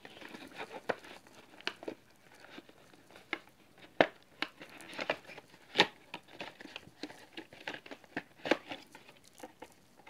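Cardboard packaging rustling and scraping as hands work a plastic remote controller out of a card insert, with scattered light clicks and taps.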